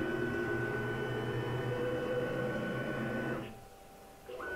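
Axis drive motors of a TorqueCNC 9060 router table moving the gantry in a manual jog at a steady speed, a steady mechanical whine of several fixed tones. The motion stops about three and a half seconds in, and a second jog on the other axis starts just before the end.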